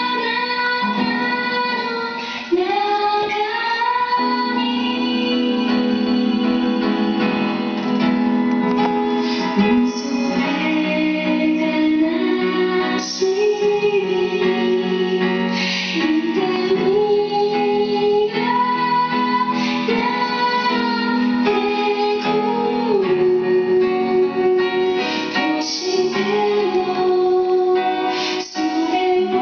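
A song: a woman singing a slow melody over steady instrumental accompaniment.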